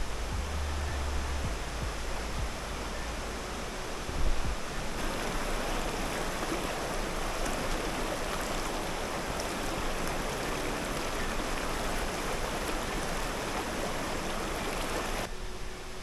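A large waterfall: water pouring and splashing as a steady rushing noise, growing louder about five seconds in and dropping back near the end. A few low bumps come in the first four seconds.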